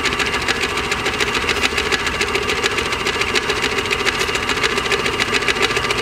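Stomacher 80 paddle blender running, its paddles beating steadily against a sealed sterile bag of raw meat and Ringer's solution in a rapid, even rhythm, homogenising the sample to wash bacteria into the liquid.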